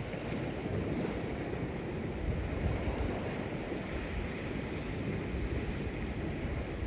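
Wind buffeting the microphone in a steady low rumble, over the wash of sea surf on a rocky shore.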